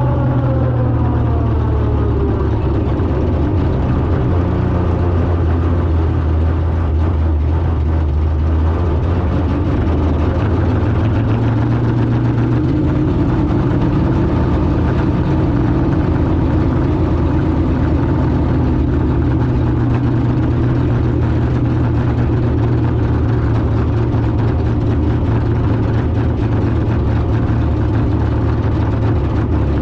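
A car engine running at low revs: its pitch falls over the first couple of seconds, then it idles steadily, with a slight rise in revs about ten seconds in.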